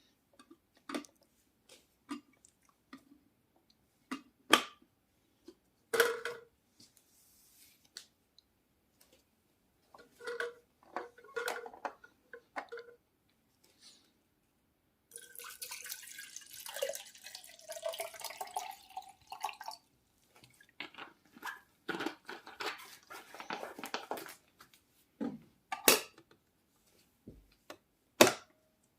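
Scattered clicks and knocks of objects being handled, with a stretch of rustling about halfway through.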